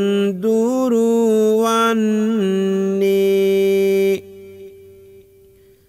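A man's solo voice chanting Sinhala kavi bana verse, drawing a syllable out in a slow sliding melody, then holding one long steady note. About four seconds in the note stops and only a faint lingering tone remains.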